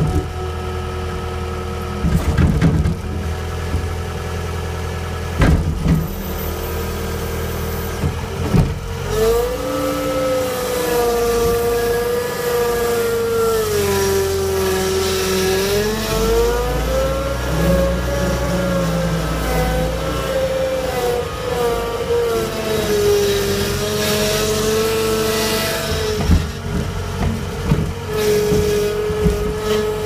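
John Deere 318 skid steer's diesel engine working under load while pushing through brush, its pitch sagging and recovering as the load changes. A few sharp knocks and cracks come from branches and the bucket.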